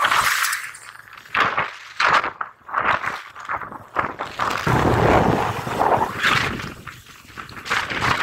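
Wind buffeting and handling noise on a handheld phone microphone aboard a moving motorcycle, coming in irregular gusts, with a fuller, heavier rush about five seconds in.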